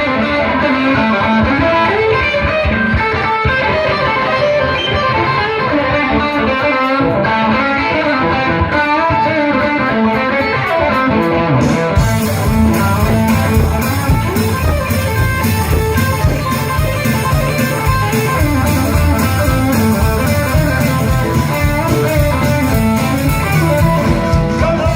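Live band music: an electric guitar plays an opening alone, then about halfway through a bass and a steady beat join it.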